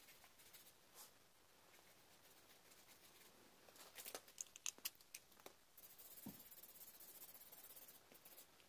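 Near silence with faint scratching and a cluster of light clicks about halfway through, then a soft hiss for about two seconds near the end.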